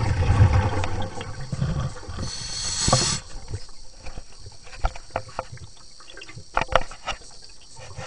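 Sound picked up by a camera underwater in a swimming pool: a low rumble of water moving around it for the first two seconds, a brief hiss about two to three seconds in, then scattered knocks and clicks.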